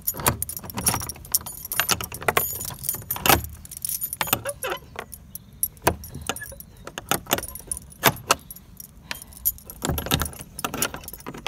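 A bunch of keys on a ring jangling and clinking against a steel padlock and metal door hasp as the padlock is unlocked and taken off one-handed, in many irregular clinks and rattles.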